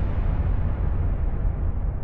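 A deep, noisy rumble that slowly fades out, its higher hiss dying away first.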